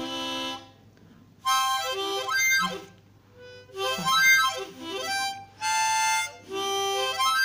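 Swan SW1020H ten-hole diatonic harmonica in C played by a beginner: a short chord, then four phrases of notes and chords about a second each, with short gaps between.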